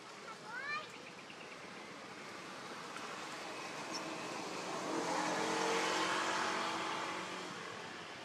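A baby macaque gives a few short, rising squeaks less than a second in. Then a passing motor vehicle swells to its loudest a few seconds later and fades away.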